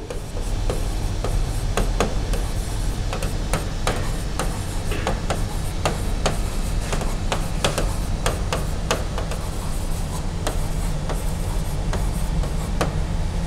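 Plastic stylus tapping and clicking irregularly against a touchscreen board as words are handwritten on it, over a steady low hum.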